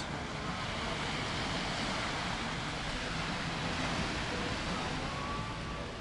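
Steady wash of gentle surf on a sandy beach, an even hiss with no distinct events.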